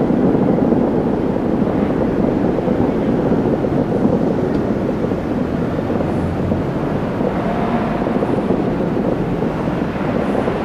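A fireworks display bursting at a distance, heard as a continuous rumbling noise with no single bang standing out.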